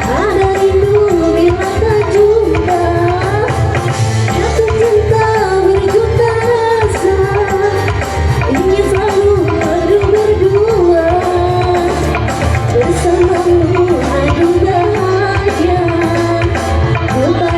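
Music: a single voice singing a wavering, ornamented melody over a steady hand-drum rhythm.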